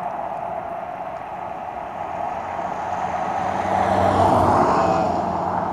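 A motor vehicle passing on the road. Its engine and tyre noise builds to a peak about four seconds in and then eases off, over a steady rushing background noise.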